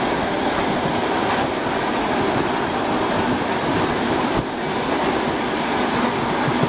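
ER2R electric multiple unit running at speed, heard from inside the car: a steady rumble and rush of wheels on rails, briefly a little quieter about four and a half seconds in.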